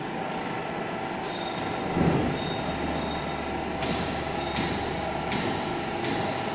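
Welding positioners' electric gear drives running as their worktables tilt and turn, a steady mechanical whine with several held tones. A thump comes about two seconds in.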